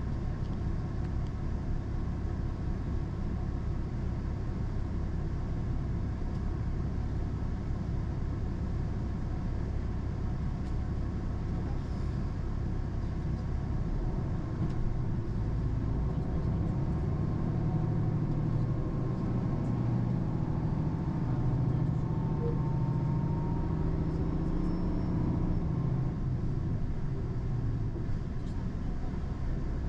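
Train running, heard from inside the passenger car: a steady low rumble of wheels on rails that swells a little past the middle, with a faint rising whine.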